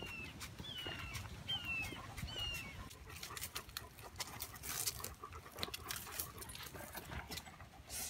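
Footsteps and rustling on a dirt forest trail, with the clicks and jingles of two dogs' collars and leashes as the dogs walk. In the first few seconds, four short falling whistled calls sound under a second apart, most likely a bird.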